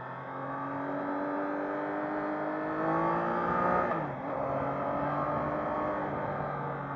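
Triumph Trident 660's inline three-cylinder engine accelerating, its pitch climbing steadily, then dropping suddenly at an upshift just before four seconds in and running on at a steadier pitch.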